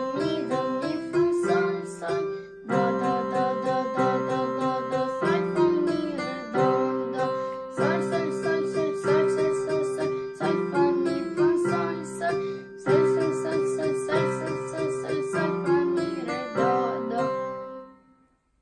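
Electronic keyboard playing a simple children's tune, note by note in a steady rhythm, with a child singing the note names along in solfège. The playing dies away near the end.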